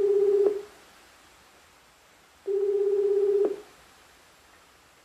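Japanese telephone ringback tone, the sign that the called line is ringing and not yet answered: a warbling tone in one-second bursts, one ending about half a second in and another from about two and a half to three and a half seconds in.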